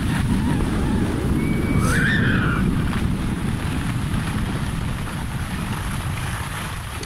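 Wind rushing over a handheld smartphone's microphone, together with skis running over packed, groomed snow. The rushing eases off through the second half as the skier slows to a stop.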